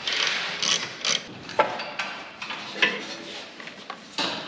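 Hand tools clicking and clinking on a car's brake-line fittings at the wheel: a handful of sharp metallic clicks, irregularly spaced, over steady workshop noise.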